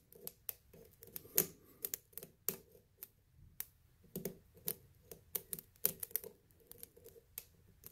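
Lock pick and tension wrench clicking and ticking against the pins inside a lock's keyway during single-pin picking: faint, irregular small metal clicks, two or three a second.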